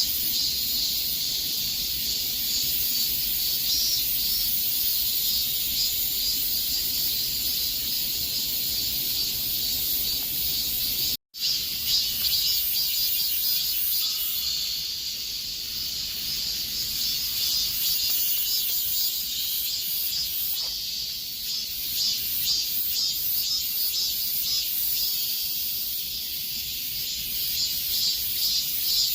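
Chorus of cicadas buzzing in a dense, steady high-pitched drone with a fast pulsing shimmer. The sound cuts out for a split second about eleven seconds in.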